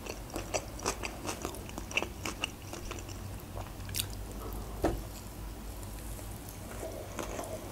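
Close-miked mouth sounds of a person chewing a sushi roll: a run of soft wet clicks and smacks, with a few sharper ones about two, four and five seconds in.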